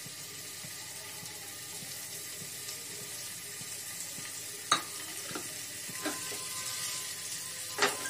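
Paneer cubes frying in hot ghee in a nonstick pan, a steady sizzling hiss, with three sharp taps as more cubes are dropped in by hand, the loudest a little past halfway and near the end.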